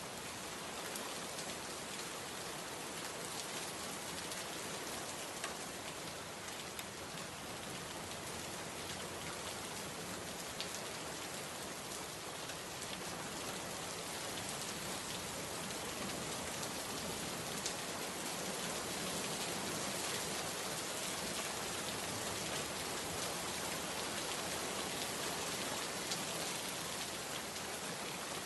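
Steady rain falling, an even hiss with scattered individual drops ticking on a surface, growing slightly heavier partway through.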